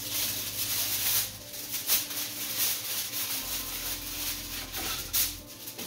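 Aluminium foil being pulled off the roll, torn and spread out flat, giving a crinkling rustle with sharper crackles that stops near the end.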